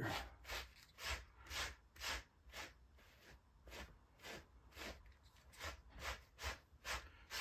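A plastic brush raking through the fur of a sewn beaver-pelt gauntlet, faint quick strokes at about two a second, brushing the fur over the seam to hide it.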